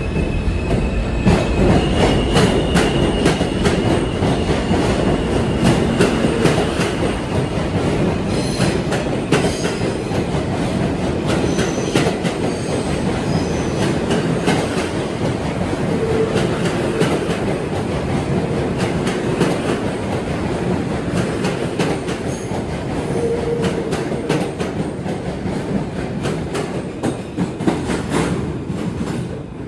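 MTA R160 subway train running on the rails: a steady rumble of steel wheels with frequent clicks over rail joints and a thin wheel squeal for a few seconds near the start, easing slightly near the end.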